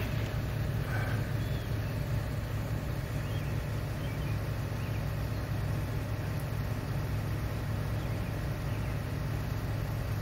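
An engine idling: a steady low drone that holds an even level throughout.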